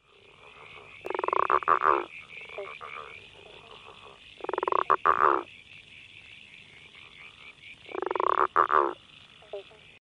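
Southern bell frog (Litoria raniformis) calling three times, each a loud pulsed call about a second long, a few seconds apart. Under it runs a steady higher-pitched chorus of other frogs: eastern banjo frogs, common eastern froglets and brown tree frogs.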